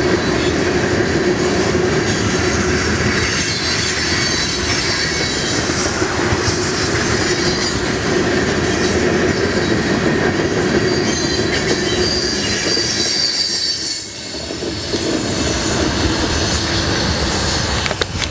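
Freight train of tank cars rolling past at speed: a steady rumble of steel wheels on rail with thin, high wheel squeals over it. It dips briefly in loudness near the end.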